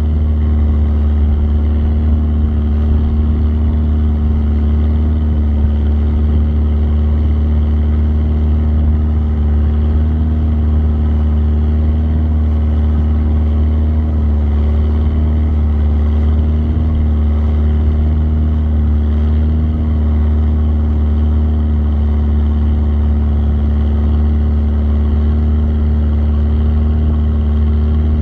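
Longtail boat engine running steadily under way, a constant deep drone that holds its pitch throughout.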